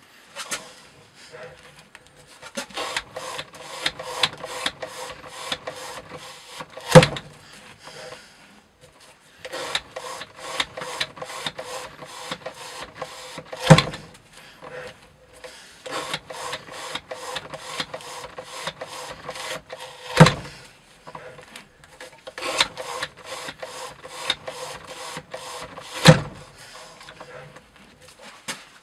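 Knife-edge cutting test rig worked by hand in cycles: a run of quick, even clicking and rubbing, about three a second, each cycle ending in a loud knock. Four such knocks come roughly six and a half seconds apart.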